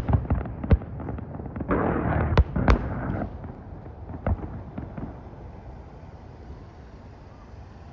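Fireworks at the tail of a show's finale: a handful of separate bangs and a stretch of crackling, thinning out and dying away in the second half.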